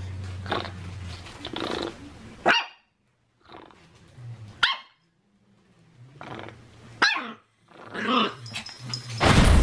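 A small fluffy white dog barking several short barks in play, with low growling at the start. A sudden loud burst of noise cuts in right at the end.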